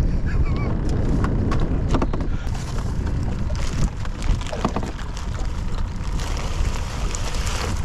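Wind buffeting the microphone, with a plastic bag of bait rustling and crinkling as it is handled, from about two and a half seconds in.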